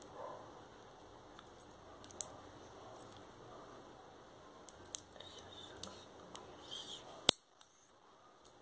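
Small scattered clicks and snips of a long fingernail being cut, ending in one loud sharp snap about seven seconds in.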